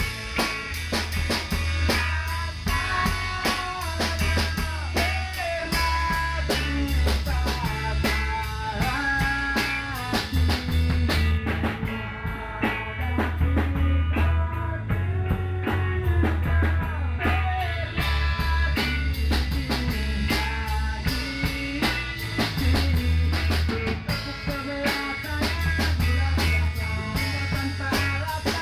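A rock band playing: drum kit with cymbals and an electric guitar carrying a melodic line over a steady beat.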